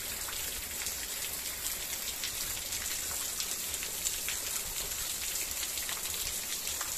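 Heavy rain falling steadily, a dense even hiss with individual drops ticking through it.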